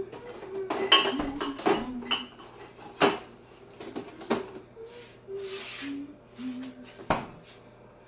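Dishes and metal utensils being handled in a kitchen: several separate sharp clatters and clinks, the loudest about a second in, with a few short low hums between them.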